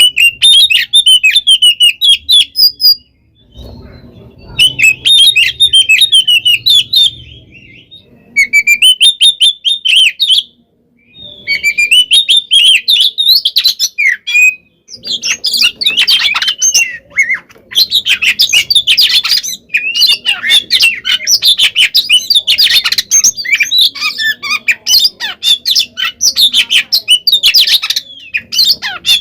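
Oriental magpie-robin (kacer) singing a loud, rapid, varied song of chattering and squawking notes: its aggressive fighting song. It comes in bursts a few seconds long with short pauses, then runs almost without a break from about halfway.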